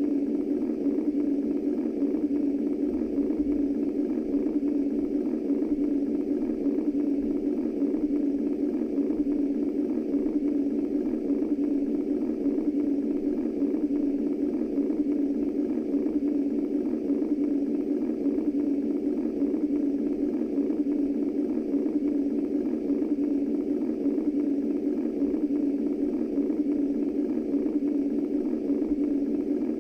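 Womb-style white noise from a sound machine: a steady, low-pitched, muffled rushing noise that stays unchanged throughout.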